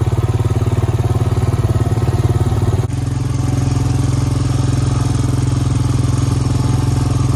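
Engine of a small vehicle running steadily while being ridden, heard from on board. About three seconds in its note smooths out and shifts slightly, then holds steady.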